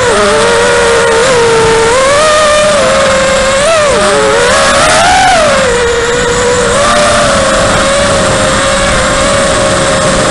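The Xnova 2204 2300kv brushless motors and HQ 5040 tri-blade propellers of a 5-inch FPV racing quadcopter whining in flight, heard from its onboard action camera. The pitch dips and rises with throttle, climbs to a peak about five seconds in, falls back, then holds steady.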